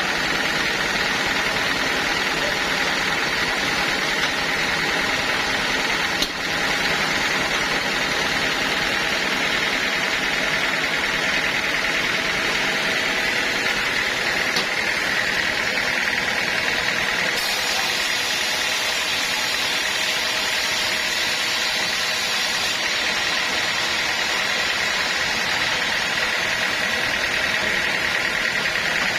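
Sawmill machinery running steadily, a continuous mechanical drone with a steady whine through it.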